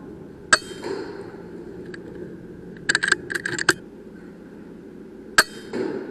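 Two sharp cracks from a .22 PCP air rifle, the AGT Uragan 2, about five seconds apart. Each crack is followed a moment later by a duller sound of the pellet striking. Between the shots comes a quick run of light metallic clicks, the action being cycled for the next shot.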